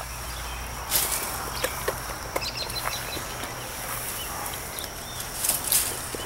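Yellow Labrador nosing through a blackberry bramble: rustling of leaves and stems with scattered sharp clicks, the loudest about a second in and twice near the end.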